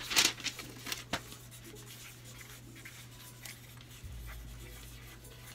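Pens scratching on paper as answers are written down, with a brief paper rustle just at the start.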